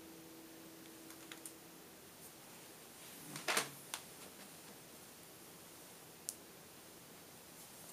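The last note of an Asher lap steel guitar faintly ringing and fading out in the first second or so. About three and a half seconds in comes a short, louder rustle of handling as the guitar is lifted, followed by a few light clicks.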